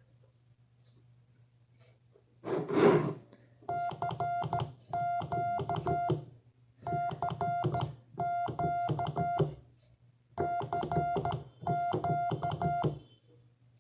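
Morse code sent on a Czech Morse key through an audio oscillator: a steady mid-pitched beep keyed on and off in short and long elements, in several groups, with the key's clicks underneath. A single thump comes about two and a half seconds in.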